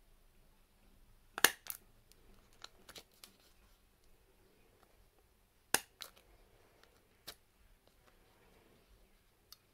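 Hand-held plier hole punch snapping through the paper edge, one hole at a time: a sharp click every few seconds, with softer clicks and paper handling between.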